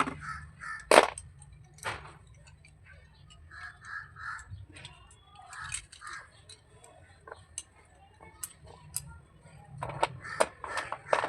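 Slate pencils clicking and cracking as they are handled, with a few sharp snaps about a second in, about two seconds in, and a cluster near the end. Crows caw in the background.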